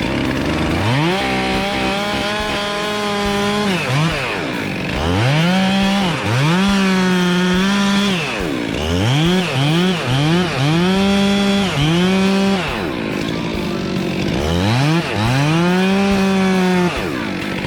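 Chainsaw cutting a large fallen tree trunk. It is revved up to full throttle and held for a few seconds at a time, dropping back between cuts, with a run of quick throttle blips near the middle.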